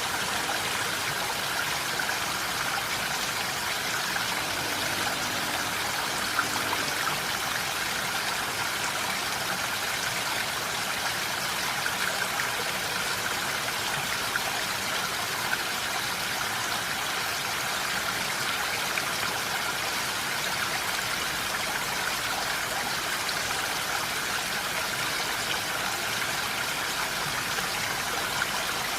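Steady rain falling in a forest: an even, unbroken hiss with a few slightly louder drops.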